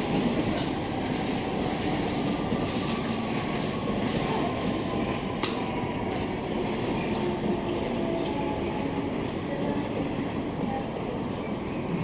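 Steady rumble of a Tama Monorail train running on its elevated guideway, with a single sharp click about five and a half seconds in.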